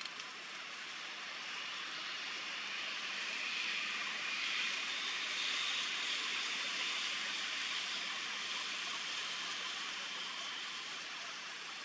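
Steady outdoor background noise, a hiss that swells for several seconds in the middle and fades again, its strongest part fairly high-pitched.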